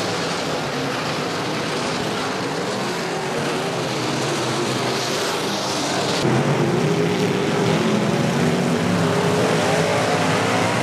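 Several IMCA Modified dirt-track race cars' V8 engines running hard in a pack, their pitches rising and falling as they race through the turns. About six seconds in the engine sound jumps louder.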